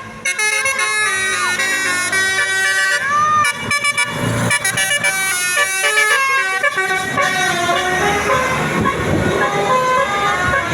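Basuri telolet bus horn playing a tune in quick stepped notes, each a steady multi-tone blast, over a low rumble that builds from about four seconds in.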